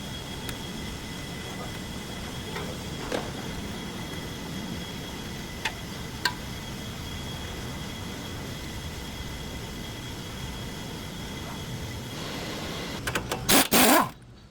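Nissan Patrol with its engine running, a steady hum with two thin steady whines, broken by a few sharp knocks from the front end, the knocking noise of a worn outer tie rod end. Near the end a loud rustling burst that stops abruptly.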